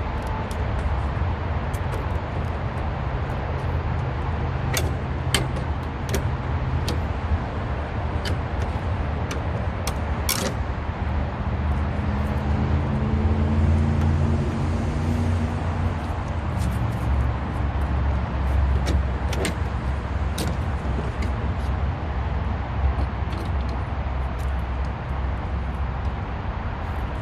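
Steady low rumble of road traffic, with a vehicle going by a little before halfway. Scattered sharp clicks and taps come from a plastic headlight grille being pried loose and handled.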